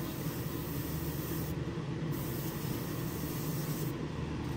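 Airbrush spraying paint, a steady high hiss that breaks off briefly twice, over the constant hum of the spray booth's exhaust fan.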